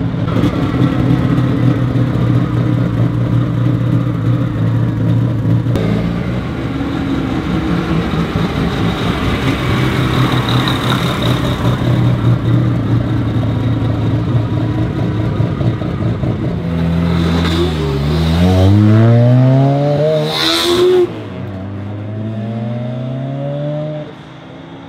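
Mazda RX-7's naturally aspirated 26B four-rotor peripheral-port engine with individual throttle bodies, idling with a choppy rotary 'brap brap' beat. Later it accelerates hard, the revs dipping and then climbing steeply twice. Near the end it is quieter and further off.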